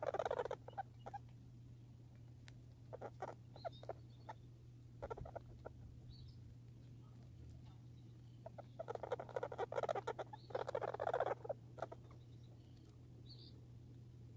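Squirrel chattering in rapid trains of clicks: a short run at the start, brief ones around three and five seconds in, and two longer runs of about a second near nine and eleven seconds in. Faint short high chirps come in between, over a steady low hum.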